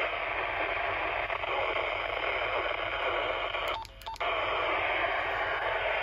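Static hiss from a Motorola two-way radio's speaker, broken about four seconds in by two short key beeps and a brief dropout before the hiss comes back.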